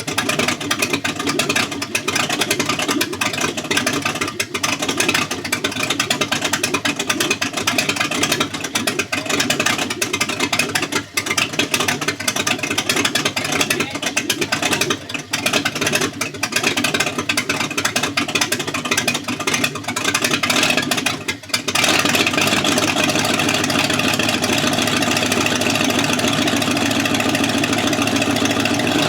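Dodge Durango engine running shortly after being started following about two years of sitting. For roughly the first twenty seconds it runs unevenly, with frequent brief dips, then it settles into a steady, even idle.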